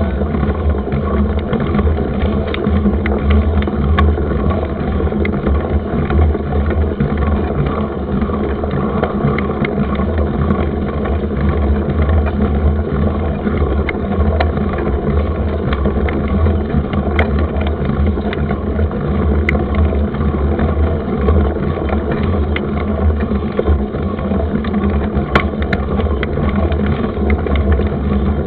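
A mountain bike being ridden over a rough trail: steady rumbling wind and road noise with scattered sharp clicks and rattles from the bike.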